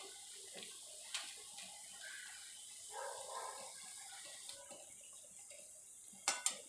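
Small drops of besan batter deep-frying in hot oil in a kadhai, with a steady sizzle. A metal slotted spoon clicks against the pan about a second in and twice near the end.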